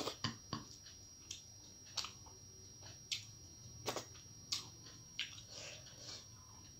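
A person chewing a mouthful of rice and curry close to the microphone. Wet mouth clicks and lip smacks come irregularly, about one or two a second.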